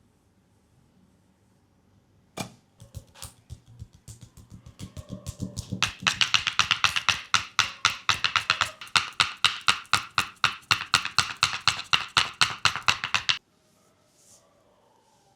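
Percussive massage strikes on the legs: a single sharp tap, then rapid rhythmic tapping that builds to a steady, loud run of about six strikes a second and stops abruptly.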